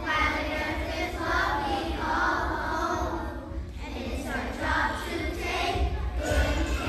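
Children's choir singing together, with a short break between phrases a little past halfway.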